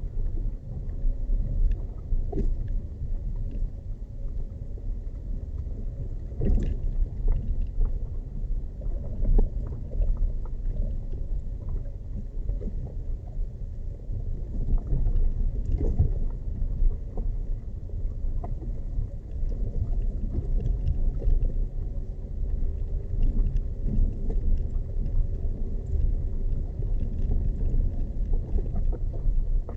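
A vehicle travelling over a rough off-road track: a steady low rumble with a faint engine tone above it and scattered short knocks and rattles.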